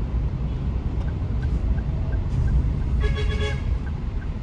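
Steady road and engine rumble inside a moving car, with the turn-signal indicator ticking about twice a second. A short horn toot sounds about three seconds in.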